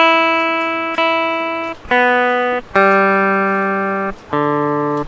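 Electric guitar being tuned: open strings plucked one at a time, each note left to ring and fade. The high E string is plucked twice, then the B, G and D strings follow, going down in pitch.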